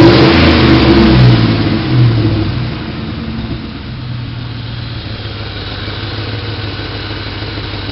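2003 Ford Mustang GT's 4.6-litre V8 revved once, then settling back to a steady idle about three seconds in. A shop suspects an exhaust leak at the flange between the headers and the mid pipes.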